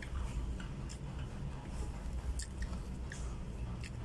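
A man chewing a mouthful of food, with a few light clicks of a spoon against a plastic food container, over a steady low background hum.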